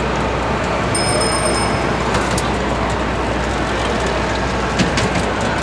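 Steady roar of heavy city street traffic, with a thin high squeal lasting about a second, starting about a second in, and a few faint clicks.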